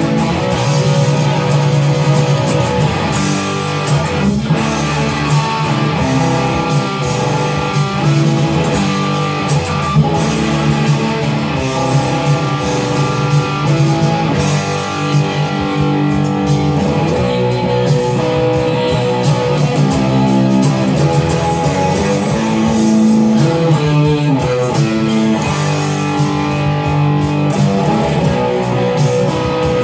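Electric guitar, a DBZ Maverick played through a Blackheart Little Giant amp with an Outlaw Lock Stock & Barrel distortion pedal, playing a rock riff of picked chords and sustained notes.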